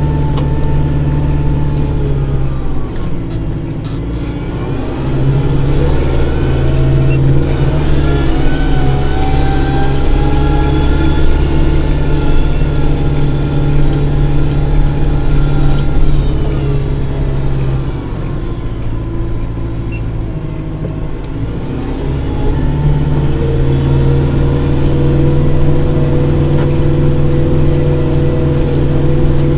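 Kubota tractor's diesel engine running steadily. Twice its note drops for a few seconds and then comes back up.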